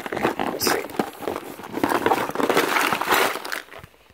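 Handling noise: rustling of a soft tackle bag and light clatter of its plastic tackle trays as it is moved and opened, dying away near the end.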